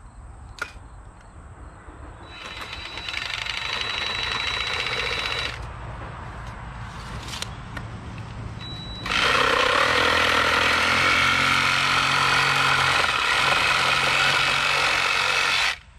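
Cordless reciprocating saw cutting through a 2x4 pine board. It runs in two stretches, a shorter one a couple of seconds in and a louder, longer one from about nine seconds that cuts off suddenly near the end.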